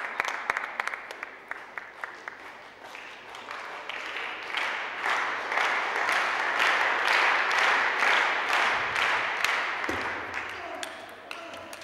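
Audience applauding, a dense patter of clapping that swells a few seconds in, holds, then dies away near the end.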